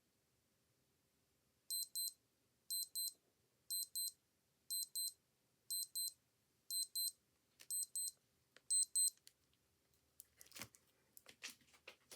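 Old digital watch alarm beeping: high double beeps, about one pair a second, eight pairs in all, then stopping. A few clicks and rustles follow near the end.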